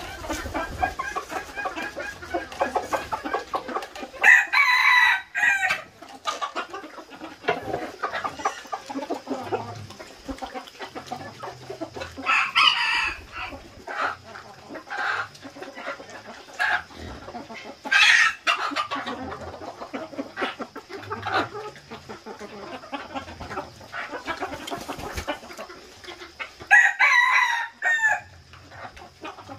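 Chickens clucking, with roosters crowing four times: about four seconds in, around twelve and eighteen seconds, and near the end.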